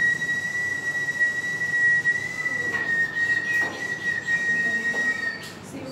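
A single steady whistle-like tone held at one high pitch for about five and a half seconds, wavering only slightly, then stopping.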